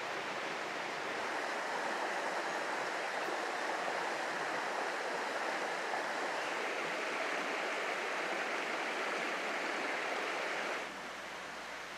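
A small trout stream runs over rocks and shallow riffles, making a steady rushing hiss of water. Near the end it drops to a quieter, softer flow.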